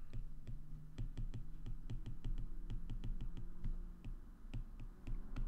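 A stylus tapping and scratching on a tablet's glass screen during handwriting: a quick, uneven run of light clicks, several a second, over a steady low hum.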